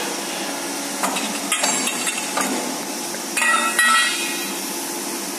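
Hydraulic tube bending machine's power unit running with a steady hum, with a few sharp metallic knocks. About three and a half seconds in, a bent steel tube clatters and rings on a concrete floor for about half a second, the loudest sound.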